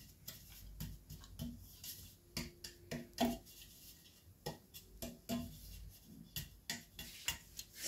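Irregular light taps and knocks on a metal cake pan, struck by hand to spread the flour over its buttered inside and shake out the excess.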